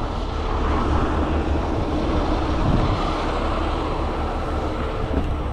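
Heavy tow truck's engine running steadily at a low rumble, powering the boom for a helicopter lift.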